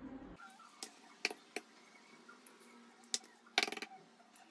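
Eggs being tapped and cracked against a glass: a few separate light clicks, then a quick run of several clicks about three and a half seconds in.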